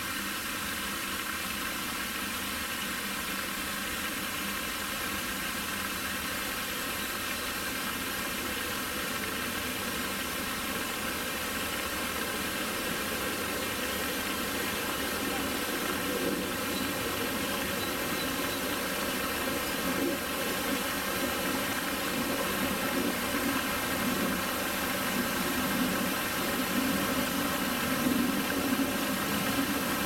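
Pond fountain spraying and splashing back onto the water in a steady rush, a little louder in the second half.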